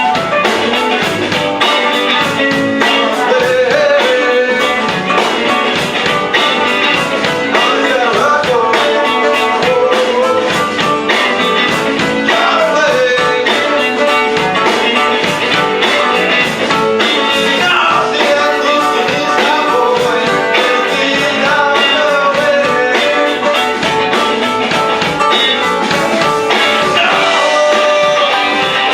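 Live band playing a blues-rock song, with guitar and a steady drum beat.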